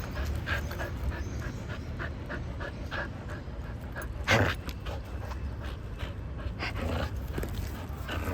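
Dog panting quickly, about three breaths a second, with one short, louder rush of breath or noise about four seconds in.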